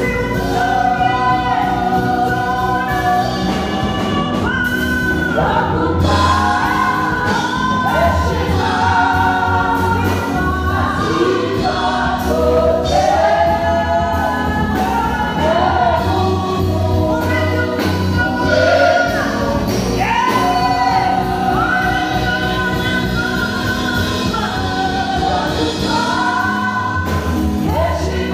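A church worship team of female and male singers singing a gospel song together into microphones, over instrumental accompaniment with a steady low bass.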